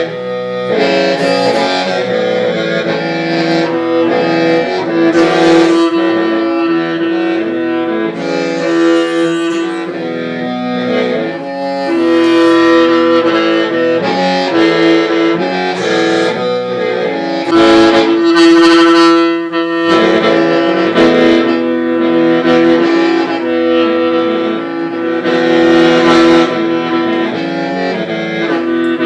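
Hmong qeej, a free-reed bamboo mouth organ, playing a flowing tune over one steady held note, with several pipes sounding together.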